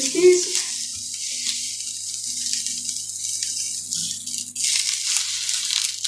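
Hot dog sausages sizzling in a hot nonstick frying pan, with a steady high hiss that grows louder about four and a half seconds in, over a faint low hum.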